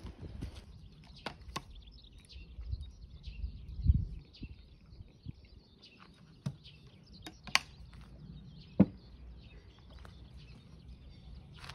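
Birds chirping faintly over a low outdoor rumble, with a dull low thump about four seconds in and a few short clicks and knocks as a drink bottle is handled and set down on a table, the loudest knock about three-quarters of the way through.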